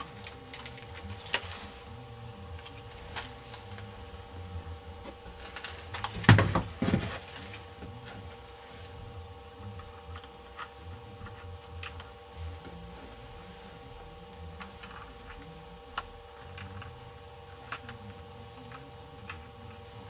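Light clicks and taps of plastic laptop parts and small screws being handled, with a louder clatter about six seconds in, over a faint steady hum.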